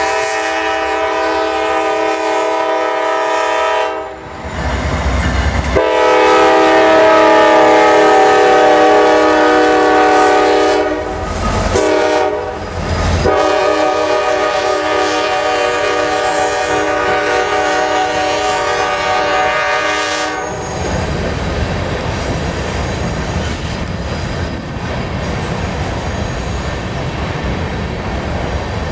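Nathan air chime horn on the lead diesel locomotive sounding repeated long blasts with short breaks, the last ending about twenty seconds in. Then the diesel locomotives and loaded grain hopper cars rumble steadily past, with wheels clattering over the rail joints.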